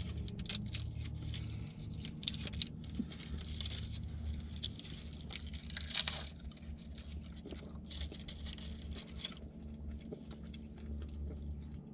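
Scattered small crackles of a candy wrapper being crinkled, and the crunch of Reese's Sugar Cookie peanut butter cups with sugar cookie pieces being chewed, louder about six seconds in.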